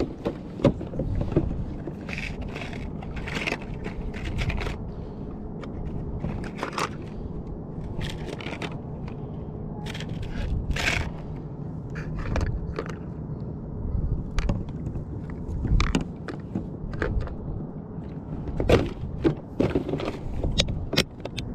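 Clicks, rattles and scrapes of a clear plastic tackle box being handled, bucktail jigs and hooks knocking against its compartments, in scattered clusters over steady low background noise.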